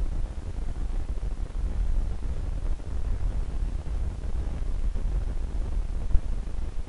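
Steady low rumble with a faint hiss: background noise on the recording, with no speech, and one brief tap about six seconds in.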